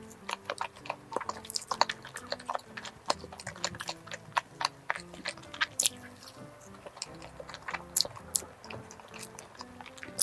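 Close-miked chewing and biting of a cream-filled crepe towel cake, with many short mouth clicks, over soft background music.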